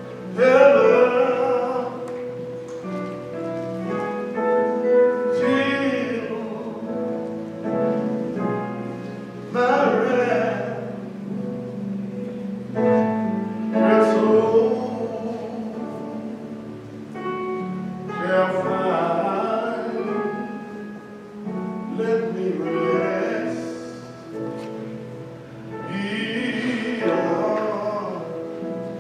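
A slow gospel hymn sung over sustained keyboard chords, the sung phrases swelling and fading every few seconds.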